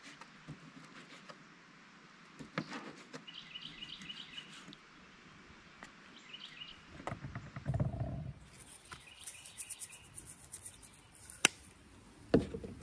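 Small birds chirping in short repeated runs, over handling noises from preparing raw chicken on a cutting board. There is a dull thump about halfway through and two sharp knocks near the end.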